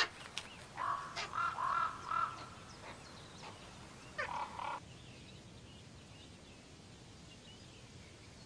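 Common raven nestlings begging at the nest: a run of short calls in the first couple of seconds, then one longer call about four seconds in. Faint high chirps follow.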